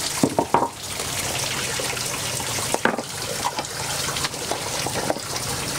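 Water running in a steady trickle, as from a tap or pipe, with a few light knocks and splashes near the start and about three seconds in.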